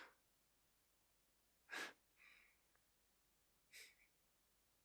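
Near silence, broken by a couple of short, soft breaths near the microphone, about two seconds in and again near the end.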